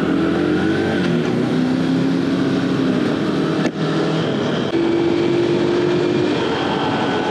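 Single-cylinder four-stroke engine of a 115 cc Aveta Ranger Cub underbone motorcycle running on the move, its pitch rising and falling and then holding steady, under heavy wind noise on the microphone. A sharp click about three and a half seconds in.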